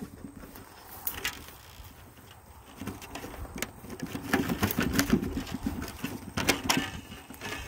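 Handling noise from fingers working small fittings at a model airplane's tail: scattered clicks and rubbing, with a buzzy, rattling stretch from about four to seven seconds in.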